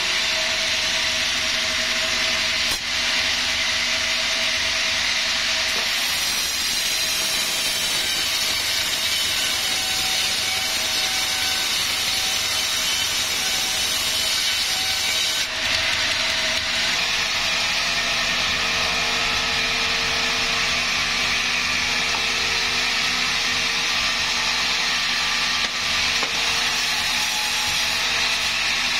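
Sawmill saw running steadily through a large wadang log. The cutting sound changes character about six seconds in and again about halfway through.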